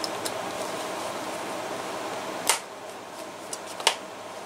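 Old holster stitching being picked apart with a thin metal pick: two sharp clicks, about a second and a half apart, as the aged thread gives way, with a few fainter ticks. A steady fan-like hum runs underneath.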